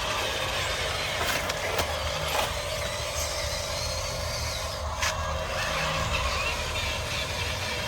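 Small electric motors and plastic gearboxes of scale RC construction machines running, with a steady whine over a low rumble and a few sharp clicks and knocks.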